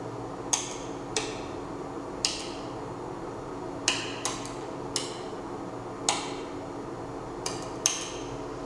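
About nine sharp clicks at irregular intervals, each with a short ringing tail, over a steady hum.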